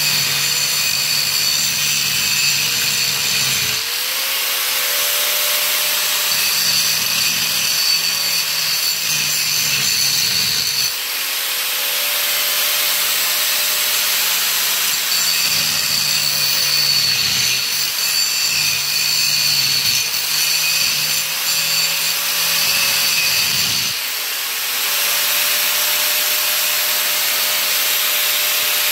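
Angle grinder running without a break, its disc cutting into the steel mounting bolts of a school bus seat in three long passes. The motor's whine drops in pitch while the disc bites and climbs back each time it comes free, and it spins freely near the end.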